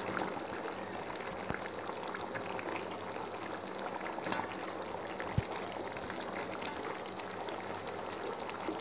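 Tomato-onion sambar gravy simmering in a pan, a steady bubbling hiss, with a few light knocks as eggplant slices and potato cubes are dropped in; one sharper knock about five seconds in.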